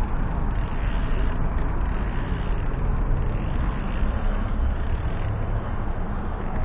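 Steady street traffic noise with a constant low rumble.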